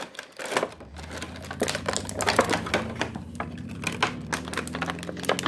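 Clear plastic blister packaging crinkling and clicking in quick irregular snaps as fingers pry a Bakugan ball out of its moulded plastic socket.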